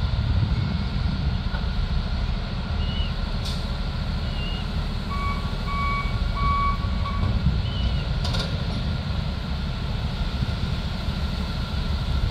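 Diesel engines of heavy track maintenance equipment running with a steady low rumble. A vehicle backup alarm gives about four beeps a little before halfway, and there are two sharp knocks.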